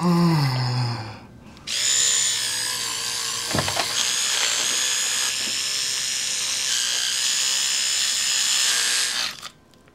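Electric toothbrush buzzing steadily in the mouth during brushing. It starts about two seconds in and stops shortly before the end. Before it there is a short falling hum, and a single click comes in the middle.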